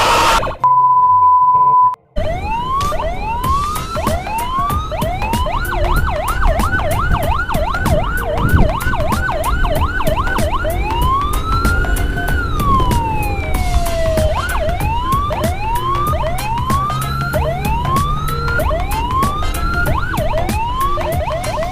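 Loud electronic siren sounding in changing patterns: repeated rising whoops, then a fast yelp, one long wail that rises and falls midway, and rising whoops again. A steady beep tone lasting about a second comes just before the siren starts.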